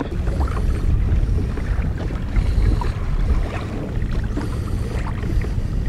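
Wind rumbling on the microphone of a kayak at sea, with a faint wash of water against the hull.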